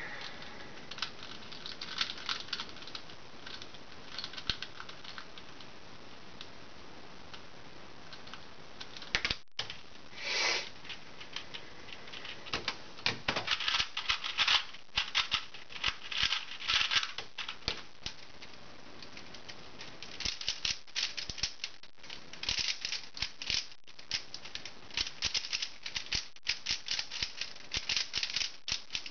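Plastic speedcubes being turned at speed, first a Type C 2x2 and then a Zhanchi 3x3: a fast, dense clatter of layer turns, broken by short pauses. The first dozen seconds hold only sparse clicks, and the rapid turning starts a little before halfway.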